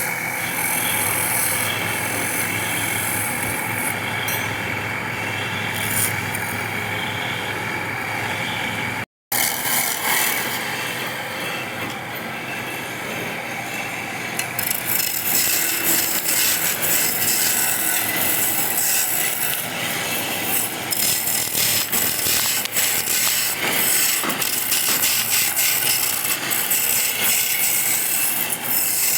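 Woodworking power tool working wood. A machine runs with a steady hum and whine, then after a brief break comes harsh scraping and rasping of a tool cutting into wood, getting louder and rougher partway through.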